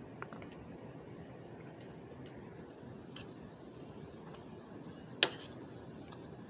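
Metal fork and spoon scraping and tapping on a plate of noodles: a few light clicks, then one sharp clink a little after five seconds in.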